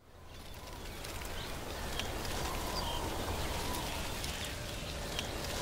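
Woodland ambience fading in over about the first second: a steady hiss with a few short, high bird chirps and occasional faint ticks.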